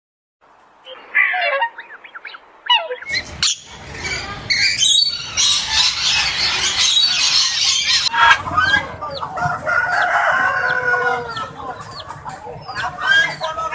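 Many birds calling over one another. Faint calls begin about half a second in, and the sound turns loud and crowded about three seconds in. Later it fills with repeated short pitched calls and chirps.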